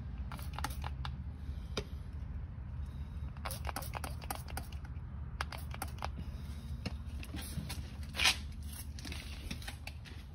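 Hand trigger spray bottle squirting a plastic-rejuvenating protectant onto truck front-suspension bushings in short, sharp spritzes about a second apart. The longest and loudest squirt comes about eight seconds in.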